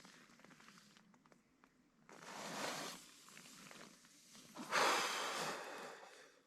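A person breathing out hard twice, each breath about a second long, the second one louder, with faint clicks between them.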